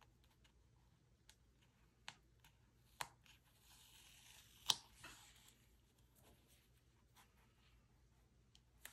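Quiet handling of a small strip of decorative paper tape on a diary page: a few light ticks, then a soft peeling, tearing hiss about three and a half seconds in that ends in a sharp click, the loudest sound, as the piece comes free and is pressed down.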